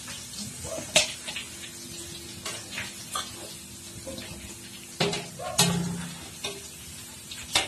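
Wire-mesh frying strainer clinking against steel pots as deep-fried chicken pieces are scooped from hot coconut oil and tipped into a steel bowl, over a steady sizzle of the oil. The sharpest clinks come about a second in and again around five seconds in.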